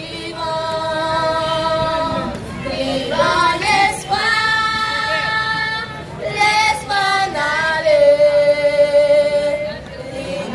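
A group of girls singing a song together into microphones over a PA system, holding several long notes of about two seconds each.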